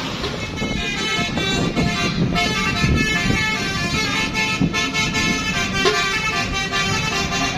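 Bus telolet horn, a multi-tone musical air horn, playing a quick tune of changing notes that starts about half a second in. Low vehicle rumble runs underneath.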